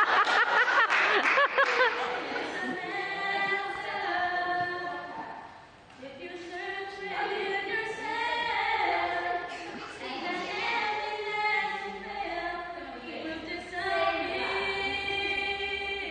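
A small group of mostly female voices singing unaccompanied, with long held notes.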